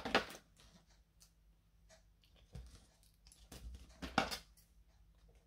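Paper craft materials being handled: card stock and foam tape rustling and tapping in a few short bursts.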